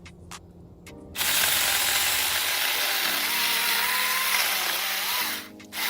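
Saker cordless mini chainsaw cutting through a thick branch. After a few clicks it runs at full speed for about four seconds, its motor whine wavering under the load. It then stops briefly and gives one short final burst near the end.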